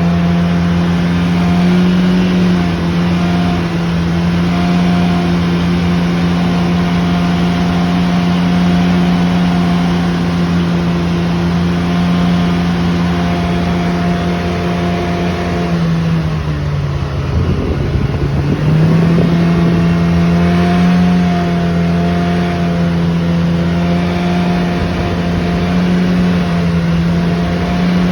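A vehicle making a loud, steady droning noise at one pitch. The drone sags and breaks up about sixteen seconds in, then climbs back to the same pitch about three seconds later.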